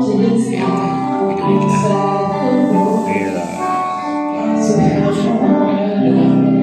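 Loud music with a singing voice over long held instrument notes.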